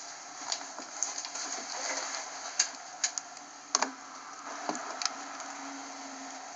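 Handling noise on the camera microphone: a hand moving against the camera makes scattered sharp clicks and knocks over a steady hiss.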